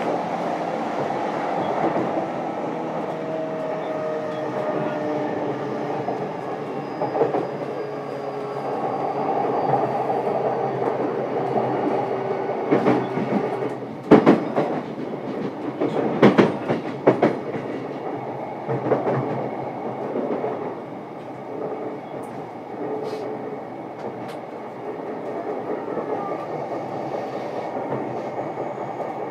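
JR East E233-series electric train heard from inside a motor car while running, with steady tones from the inverter and traction motors under the rumble of the wheels. About halfway through comes a cluster of sharp knocks and clatter as the wheels cross the track, after which the running settles quieter.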